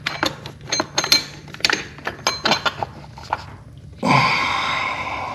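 Metal hand tools clinking and knocking together in a quick irregular run of sharp clinks. About four seconds in a steady rushing noise starts abruptly.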